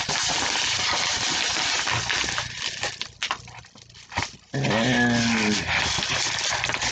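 Paper mailer envelope being crumpled and handled, rustling loudly for the first couple of seconds, then a few light crinkles and taps. About two-thirds of the way through comes a brief pitched, voice-like sound.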